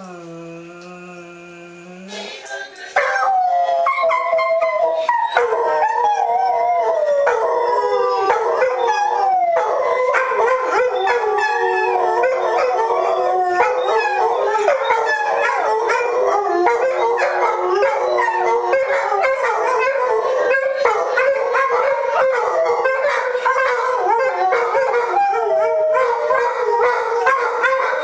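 Several German Shorthaired Pointers howling together, a thick chorus of overlapping long wavering howls set off by a TV commercial jingle. The howling starts about three seconds in and keeps going loudly without a break.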